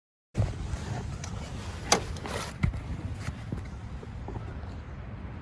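Low steady hum of a car idling, with several light clicks and knocks over it, the sharpest about two seconds in. The sound cuts in abruptly just after the start.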